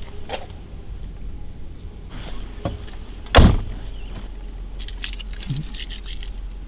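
Steady low rumble of the Mercedes E500's V8 idling, heard from the cabin, with faint clicks and rustles and one loud thump about three and a half seconds in.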